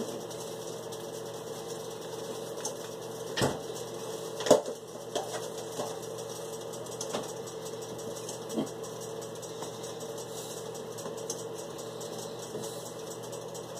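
Steady appliance motor hum with a fine crackle over it, broken by a few sharp knocks, the loudest about four and a half seconds in.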